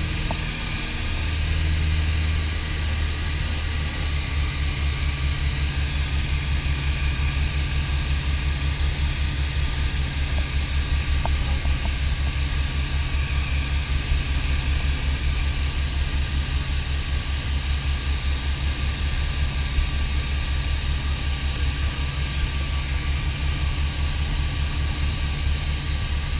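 Piper PA-44 Seminole's twin four-cylinder Lycoming engines and propellers droning steadily in flight, heard inside the cockpit. The low drone has a fast, even pulse in it, with a hiss of airflow over it.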